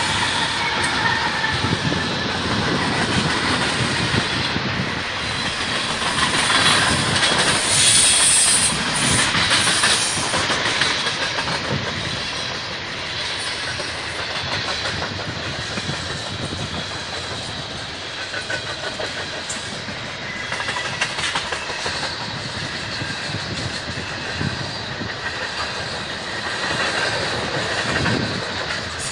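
Freight train passing close by: the last diesel locomotive goes past, then a long string of tank cars rolls by with a steady rush of rolling noise and wheels clacking over rail joints. It is loudest about seven to ten seconds in, then settles.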